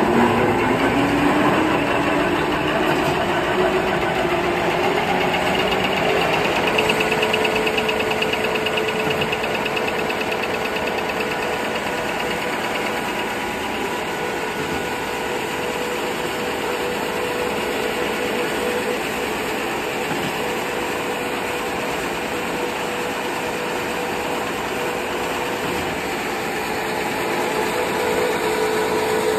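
Automatic table napkin folding machine running: dense, continuous mechanical noise with a whine that rises in pitch over the first six seconds, then holds steady.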